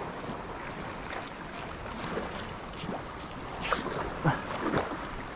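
Shallow sea water lapping and splashing at the shoreline, with wind on the microphone; a few louder, sharp sounds come near the end.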